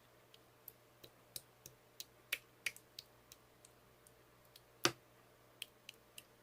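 Slime being pressed and poked by hand, giving a string of sharp, irregular clicks and pops as air pockets burst, about two or three a second, the loudest one about five seconds in.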